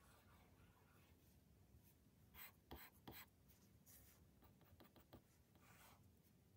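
Faint scratching and tapping of an Apple Pencil tip drawing short strokes on an iPad's glass screen, a handful of strokes in the middle, over quiet room tone.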